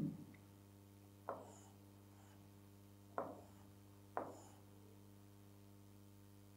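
Three faint taps of a stylus against the glass of an interactive touchscreen display as lines are drawn on it, over a faint steady hum.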